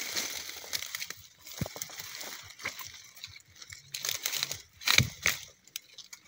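Dry sticks and leaf litter rustling and crackling as a hand pushes into a brush pile, with a few sharp snaps of twigs, the loudest about five seconds in.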